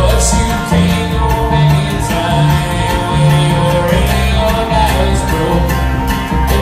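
Bluegrass string band playing live: banjo, acoustic guitar, mandolin and upright bass together, the bass moving between low notes under the picked strings.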